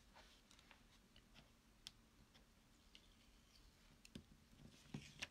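Near silence with faint, scattered small clicks and paper ticks as the point of a pair of scissors picks at and peels a sticky-note mask off a stamped cardstock card. A few sharper taps come near the end.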